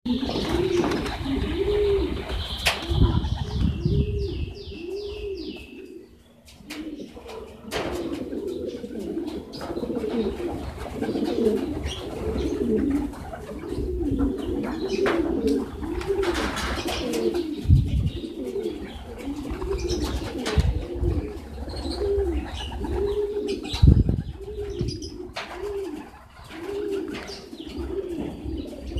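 Domestic pigeons cooing continuously, a steady stream of low rolling coos that overlap one another, with occasional short sharp knocks.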